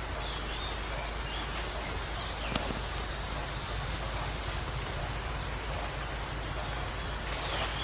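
Open-air rural ambience: a steady hiss with birds chirping now and then, high and brief.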